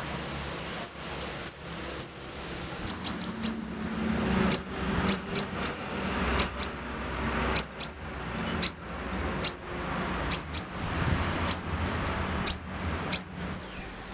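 Sogon bird giving sharp, very high chirps, each a quick falling note, singly, in pairs and in short quick runs: the harsh 'nembak' calls used as lure audio to set a caged sogon calling.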